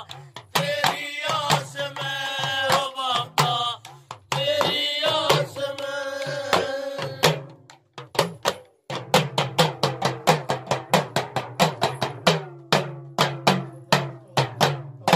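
Devotional folk bhajan music: a held melodic line over drum strokes, then from about nine seconds a fast, even beat on the deru, a small hourglass hand drum, about five strokes a second.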